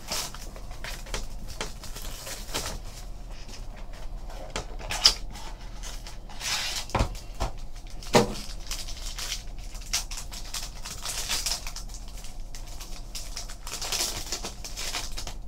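Trading cards and their packaging being handled on a table: irregular rustling and sliding of card stock and wrapper, with scattered sharp clicks and knocks.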